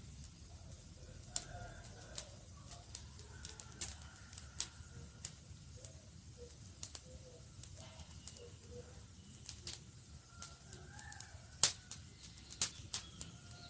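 Campfire crackling: irregular sharp pops and snaps from the burning wood over a steady low rumble of flame, with the loudest pop late on.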